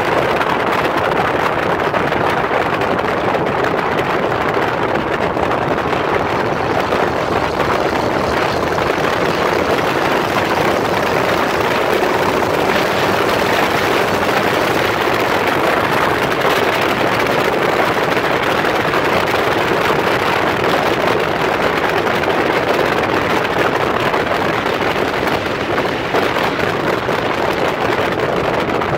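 Steady rushing ride noise from an open trailer towed along a gravel road behind a diesel pickup truck: tyres on gravel and the truck running blend into one even sound with no clear engine note.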